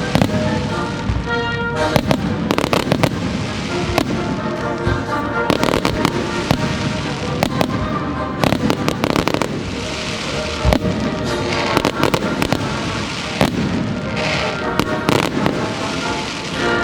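Fireworks bursting in quick, irregular cracks and bangs over the show's soundtrack music, which plays loudly throughout.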